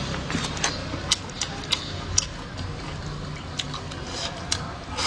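Irregular light clicks and taps of chopsticks and tableware while a meal of noodles is being served, with a short, louder rustling scrape right at the end.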